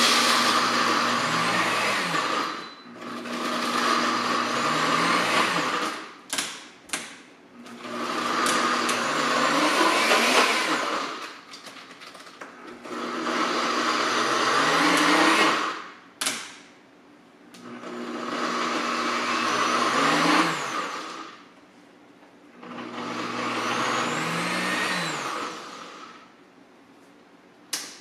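Countertop blender run in six short pulses of two to three seconds each, grinding Flamin' Hot Cheetos into crumbs for a coating. A few sharp knocks come between the bursts.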